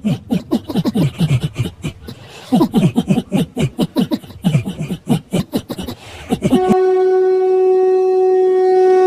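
A deep, rapidly repeated voice effect, about five pulses a second, each dropping in pitch, like a demonic laugh. About two-thirds of the way in it gives way suddenly to a single steady, blown horn-like note.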